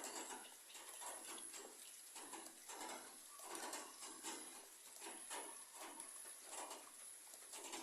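Rain falling on broad papaya leaves: irregular soft patters of heavy drops striking the leaves, over a faint hiss of rain and a thin steady high tone.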